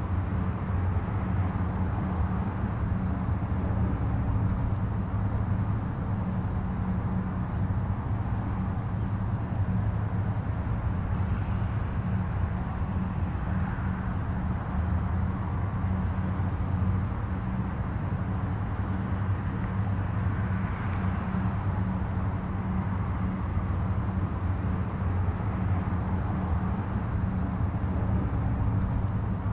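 Distant highway traffic: a steady low rumble of road noise that swells slightly now and then as vehicles pass. A faint, rapid, high-pitched pulsing runs underneath.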